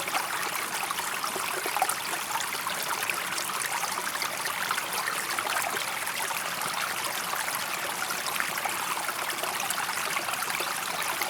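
Water flowing steadily over stones in a small stream, a continuous babbling trickle.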